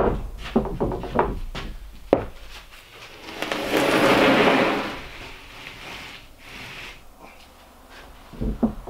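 Sheet of 3/4-inch OSB tongue-and-groove subflooring being handled and set down on a stack of sheets: a couple of wooden knocks in the first two seconds, then a long rubbing slide of board on board about four seconds in.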